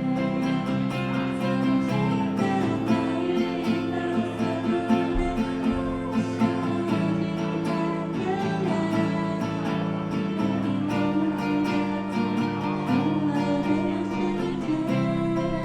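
Acoustic guitar music: chords strummed and plucked steadily as a song's accompaniment.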